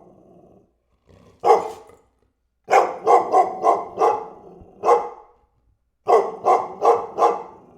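A dog barking in quick bursts: a single loud bark, then a run of four, another single bark, and a final run of four, with short silent pauses between.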